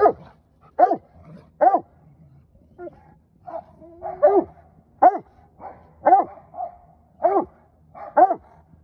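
Old English Sheepdog barking over and over, about eight loud barks roughly a second apart, with quieter yelps and a short whine between them.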